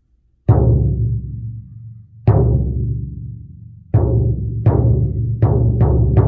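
Large floor drum with a bare head struck with a mallet seven times. Each hit gives a deep boom that rings on and dies away slowly. The first strikes are spaced well apart, and the later ones come faster and overlap.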